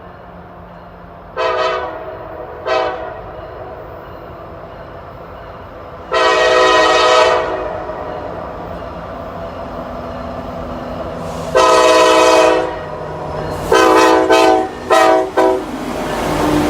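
Air horn of a Norfolk Southern freight train led by an SD70M locomotive, blown in a horn show: two short blasts, two long blasts several seconds apart, then three quick short blasts. The train's rumble grows near the end as it draws closer.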